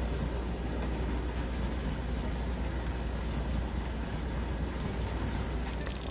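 Steady kitchen background noise: a constant low hum with an even hiss over it, unchanging throughout.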